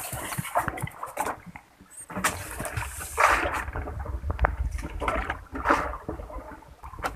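Water splashing and sloshing against a small fishing boat, with a few sharp knocks and a low rumble.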